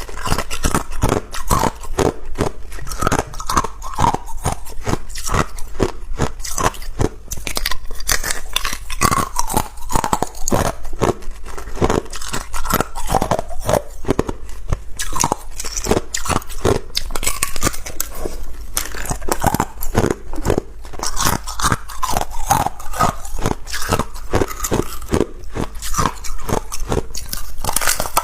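A person biting and chewing ice close to the microphone: a dense, irregular run of sharp crunches and cracks, several a second.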